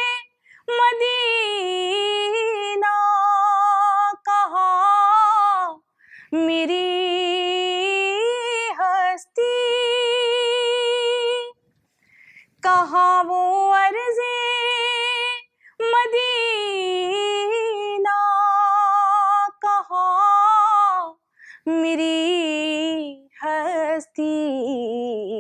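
A woman singing a devotional Urdu kalam unaccompanied: long held notes with a wavering vibrato, in phrases broken by short pauses.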